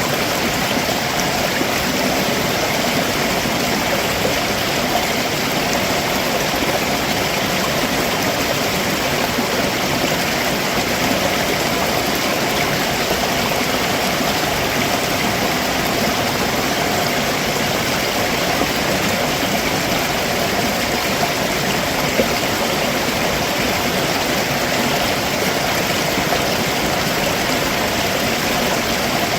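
Stream running over rocks below a waterfall: a steady, even rush of water.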